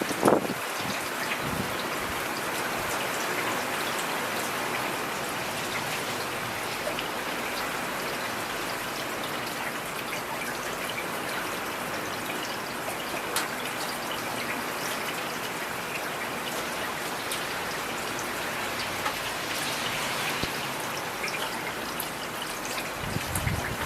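Steady rain falling, with many individual drops ticking sharply on a surface. A brief, louder low thump comes right at the start, and a low swell near the end.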